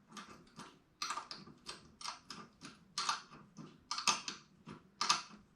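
A 13 mm wrench clicking against a nut as it is lifted off and re-seated a short turn at a time, tightening a light-pod mounting nut by hand: sharp metal clicks, several a second, unevenly spaced.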